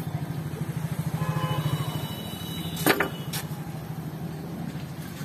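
An engine running at idle, a steady low pulsing throb, with a sharp click about three seconds in and a fainter one just after.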